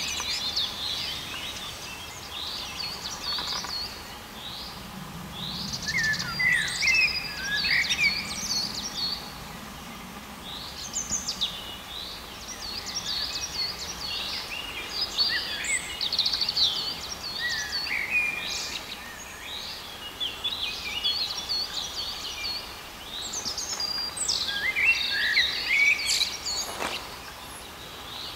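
Songbirds singing: rapid high chirps and warbles in phrase after phrase, a few seconds apart, over a faint steady background hiss.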